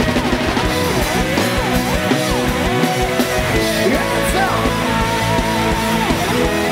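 Live rock band playing an instrumental passage: an electric guitar lead with bent, gliding notes over drums and a driving beat.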